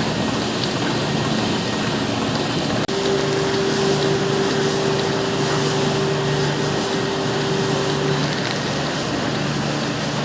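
Milking-parlour machinery running: a steady mechanical noise. After a momentary drop-out about three seconds in, a steady hum rises over it for about five seconds.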